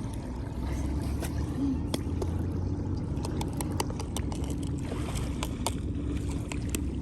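Water splashing and lapping at a beach over a steady low rumble, with a run of sharp splashy clicks in the middle.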